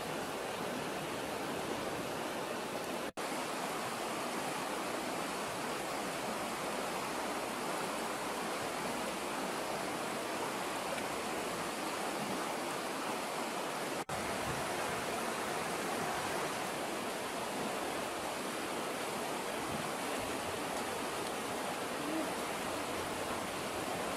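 Steady rushing of a rocky stream flowing close by, even and unbroken apart from two momentary dropouts, about three seconds in and past the middle.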